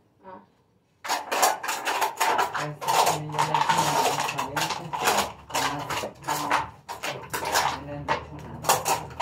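Drink cans and plastic bottles being handled and sorted for recycling: a quick run of clinks, clatters and knocks that starts about a second in.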